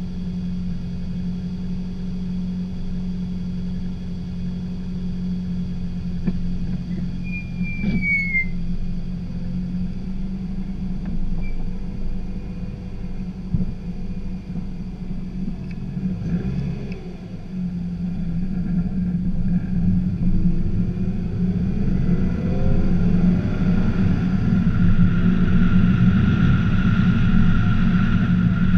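Scion tC's four-cylinder engine running with a steady hum, then pulling away, its note rising and growing louder from about twenty seconds in. A brief high squeak comes about seven seconds in.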